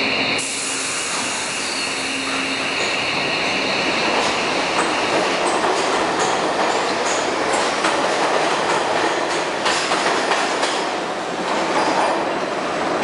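R62A subway train pulling out of the station and picking up speed, with a high steady whine for the first few seconds. The running rumble grows louder and scattered wheel clacks follow as the cars pass.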